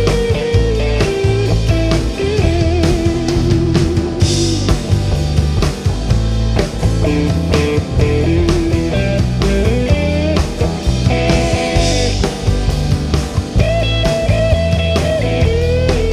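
Instrumental break of a rock song: a lead guitar plays a melody with bends and vibrato over bass, rhythm guitar and a drum kit, with cymbal crashes about four seconds in and again near twelve seconds.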